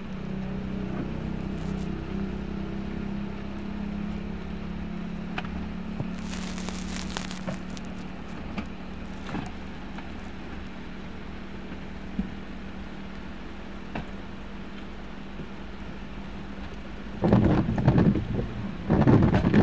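Heavy rain falling steadily on a paved road. An engine hum runs under it at first and fades out over the first several seconds. Two loud rumbling bursts come near the end.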